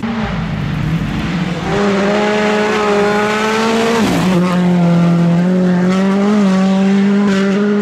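Hyundai i20 Rally2 car's engine held at high revs as it passes sliding on gravel, with gravel and tyre noise under it. The engine note steps up a little under two seconds in and drops back just after four seconds in.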